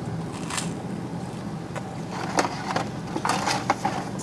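Fast-food packaging being handled: scattered rustles and light clicks as paper and containers are moved, with a cluster of rustling about three seconds in, over a steady low hum.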